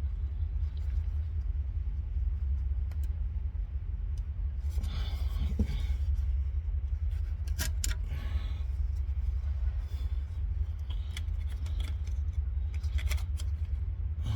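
A steady low rumble throughout, with a few scattered metallic clicks and short scrapes as a wrench is worked up to the car's oil filter.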